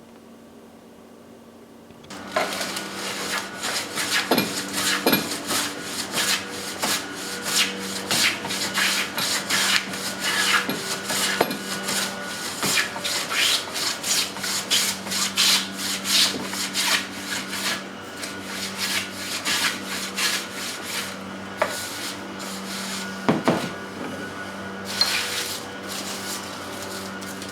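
Electric sander working on wood, starting about two seconds in. A steady motor hum runs under a dense, irregular scratchy rubbing as the abrasive pad moves over the wood.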